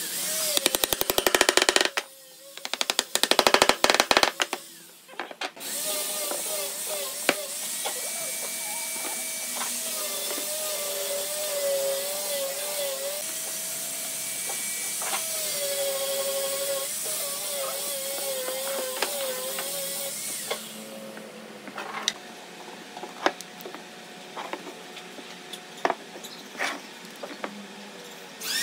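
Workshop noise: two short bursts of a rapidly repeating power tool in the first few seconds, then a long steady hiss with a wavering hum, then scattered light knocks of wooden pieces being handled on a bench.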